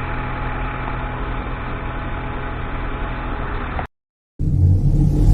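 Ford Taurus engine idling steadily and smoothly, with its new engine mount and turbo boost hose fitted; the vibration it had before is gone. About four seconds in it cuts off, and after a short silence a louder, deep rumble with a whoosh begins.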